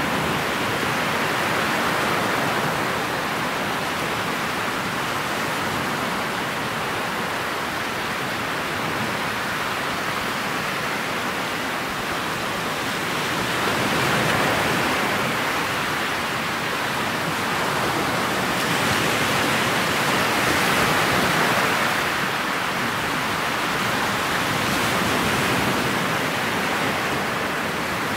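Steady rushing noise of a motorboat under way on choppy water: wind across the bow-mounted camera's microphone and water rushing along the hull. It swells a little louder about halfway through and again a few seconds later. No distinct engine note stands out.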